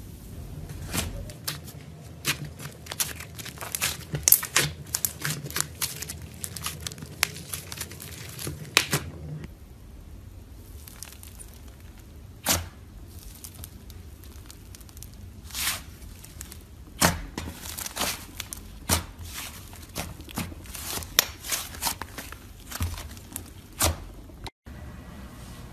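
Hands crushing slime with a glittery foam block worked into it: dense crackling and crunching for about the first nine seconds. Then, from thick fluffy slime being squeezed, slower separate pops and squelches.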